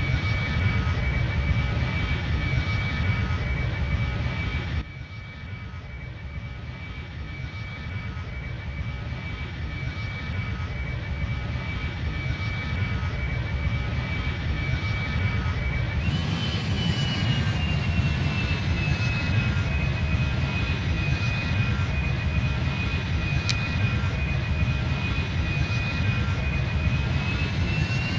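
Jet airliner engines running, a steady rush of engine noise with a high whine held over it. About five seconds in the sound cuts abruptly to a quieter level and then slowly grows louder. About sixteen seconds in it changes abruptly again, with the whine jumping higher.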